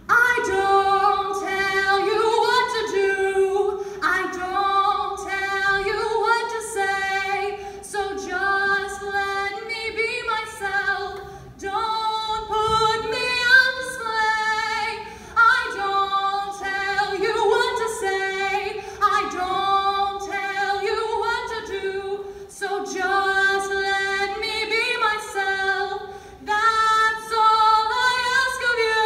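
A girl's solo singing voice through a microphone, a slow melody of long held notes in phrases a second or two apart, with no clear beat behind it.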